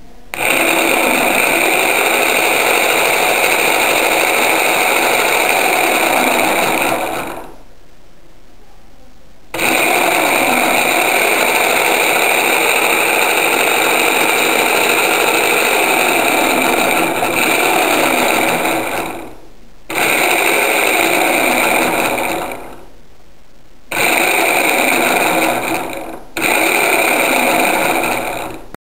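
Salvaged radiator-fan electric motor on a bench test, spinning its sprocket drive with a steady high whine. It is switched on and off five times, starting abruptly and winding down each time the power is cut.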